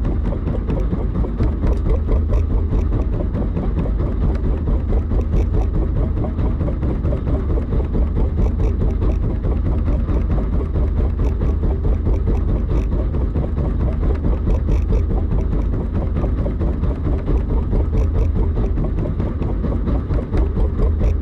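Fishing boat's engine running with a steady low rumble, with faint irregular ticks over it.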